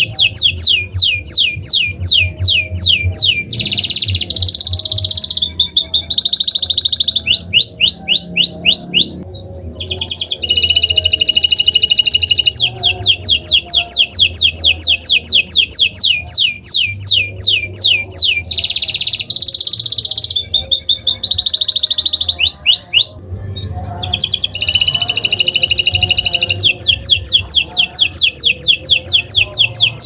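Domestic canary singing a long, loud, nearly unbroken song of rapid trills of repeated notes alternating with rolling and buzzy phrases, broken by brief pauses about nine seconds in and again around twenty-three seconds.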